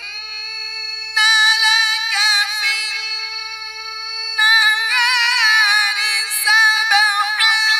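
Quran recitation (tilawat) by a male reciter, chanted in a high melodic voice. Long held notes are decorated with wavering ornaments, sung into a microphone.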